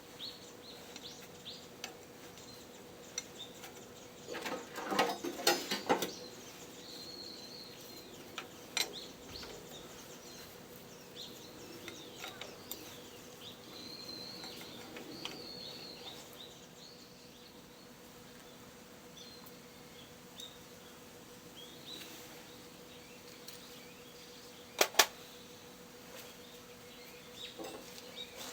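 Scattered knocks and clinks from hand work on a tractor front axle being taken apart: a quick cluster about five seconds in, a single knock a few seconds later, and a sharp double knock near the end. Birds chirp intermittently in the background over a steady low hum.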